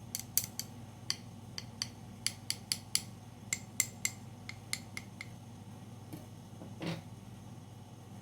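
Sharp metallic clicks and taps from the parts of a spring-powered metal Glock 17 replica pistol being handled, about twenty in irregular clusters, then a short scrape a little before seven seconds.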